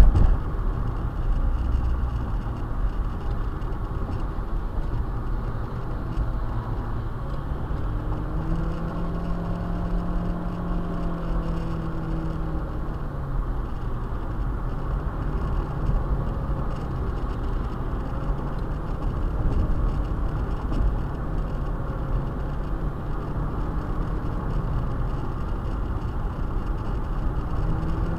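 Highway driving heard from inside a 2010 Nissan Versa hatchback's cabin: steady road and tyre rumble with the engine running. About eight seconds in, an engine note climbs, holds for a few seconds and falls away around thirteen seconds.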